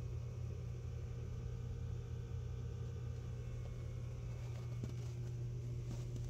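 A steady low hum with a fluttery rumble beneath it, and a couple of faint clicks near the end.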